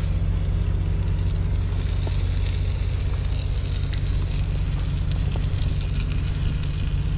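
Diced steak sizzling and crackling in a cast-iron skillet on a camp stove, full of small ticks, over a steady low rumble.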